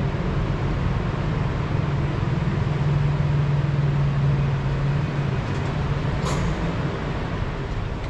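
Steady low mechanical hum under a rushing noise, with one brief click about six seconds in.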